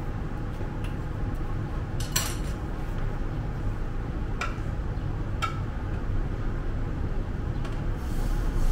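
Crepe-making clatter: a few sharp clinks of utensils against a pan and a ceramic mixing bowl, the first about two seconds in and two more a second apart, over a steady low background rumble. Near the end a soft hiss begins as batter goes into the hot pan.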